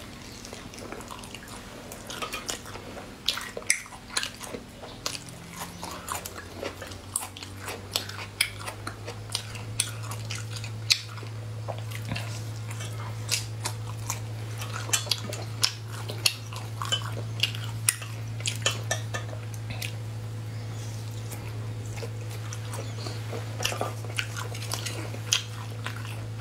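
Close-miked eating: a person biting and chewing spicy gluten-strip skewers and other spicy food, with many short, sharp mouth clicks and crunches. A low steady hum comes in about six seconds in and continues under the chewing.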